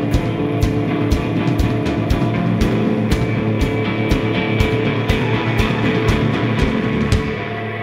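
Rock band playing live: electric guitar, bass guitar and drum kit, with drum hits on a steady beat of about two a second. Near the end the drums stop and the guitars and bass ring on.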